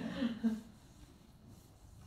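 A voice trailing off in the first half second, then a quiet pause with faint room tone.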